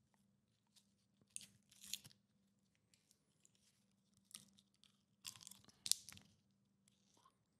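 Faint crunching bites close to the microphone, a few short crackly bursts about a second and a half in and again around five to six seconds in, over a faint steady low hum.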